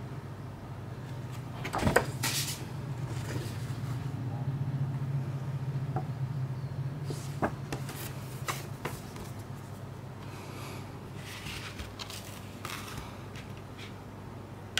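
Gloved hands handling a fold-out paper booklet and a Blu-ray case: light paper rustling with several sharp clicks and taps, the loudest about two seconds in. A brief sharp click at the very end as a disc is pressed off the case's centre hub.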